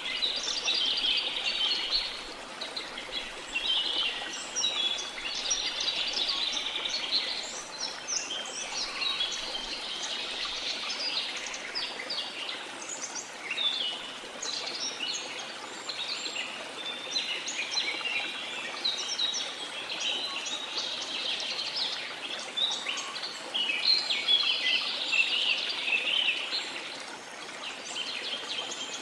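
Many small songbirds chirping and singing at once, a dense chatter of short calls that never stops, over a steady, even hiss of the sea.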